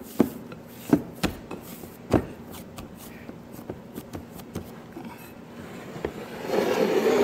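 Hands kneading a ball of dough in a glass mixing bowl: a few soft knocks as the dough is pressed and turned against the glass, then a longer, louder rubbing noise near the end as the bowl is handled.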